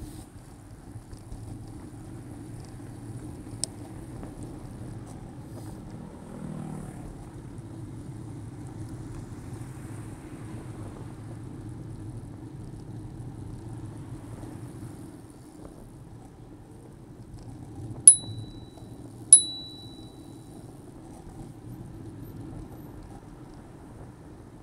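Steady wind and tyre rumble of a bicycle ride. About three-quarters of the way through, a bicycle bell rings twice, just over a second apart, loud over the rumble. The bell is rung as a warning just as a car starts to roll forward.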